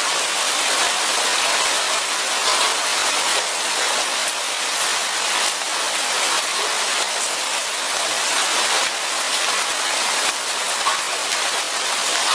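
Light rain falling steadily in a forest: an even hiss with individual drops ticking here and there.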